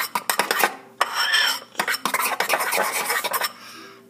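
A utensil stirring a glue and shaving cream slime mixture in a bowl, scraping and clicking against the bowl in quick, irregular strokes, easing off briefly near the end.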